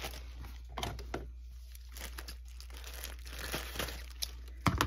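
Thin clear plastic bag crinkling and rustling in the hands as it is handled and opened, with a louder rustle just before the end.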